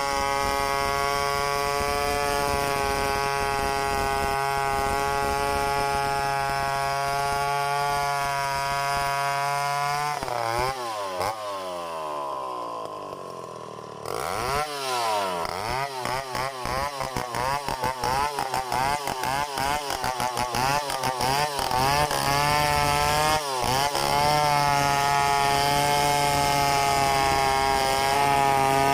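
Stihl 070 two-stroke chainsaw running steadily at high revs while ripping lengthwise through a mahogany log. About ten seconds in the revs fall away; from about fourteen seconds the engine is revved up and down again and again, then it settles back into a steady full-throttle run.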